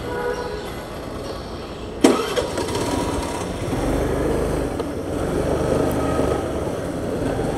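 Scooter engine running, getting louder about three and a half seconds in as the scooter pulls away. A single sharp click about two seconds in.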